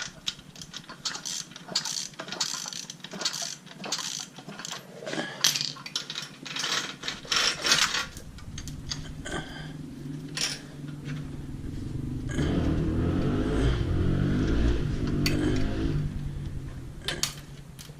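Ratchet clicking and chain clinking as a 19 mm socket turns the big nut on an 80cc motorized-bicycle engine counterclockwise to work the chain on. From about eight seconds in a steadier low whirring with light rattle takes over, loudest in the last third.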